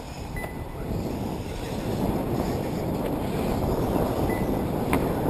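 Wind buffeting the microphone: a rough, rumbling noise that grows louder about a second and a half in.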